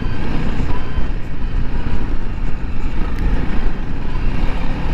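Honda CRF300L dual-sport motorcycle's single-cylinder engine running steadily at low speed on a gravel dirt road, mixed with the rumble of the tyres over loose rock.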